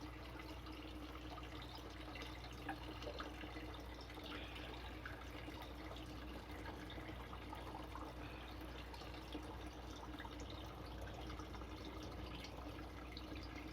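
Faint, steady trickling and dripping of water in an aquaponics system over a low steady hum, with a few light clicks.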